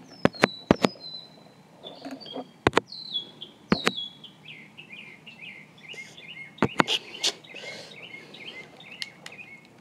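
Birds chirping: short, high, falling chirps, then a quick run of repeated chirps from about four seconds in. Several sharp clicks, the loudest sounds, fall among them.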